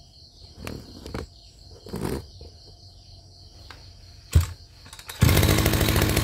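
Tanaka TBC270 brush cutter's 27 cc, 34 mm-bore two-stroke engine being started: a few soft knocks from working the controls, a sharp knock a little after four seconds in, then the engine catches about five seconds in and runs steadily.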